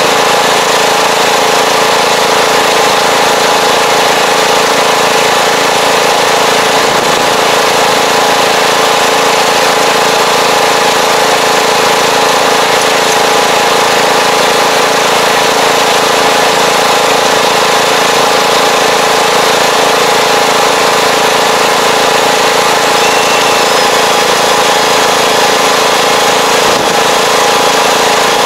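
Farm tractor engine running steadily as the tractor drives across the field pulling a fertilizer applicator, heard close up.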